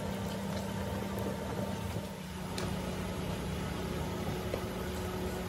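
Steady low drone of running machinery, with a fainter high hum above it and a few faint ticks.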